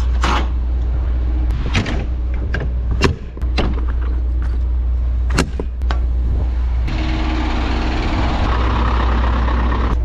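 Lorry's diesel engine idling with a steady low hum. Over it come several sharp metallic clicks and clunks as the trailer's rear door latches and catches are worked. From about seven seconds in, a louder steady hiss joins.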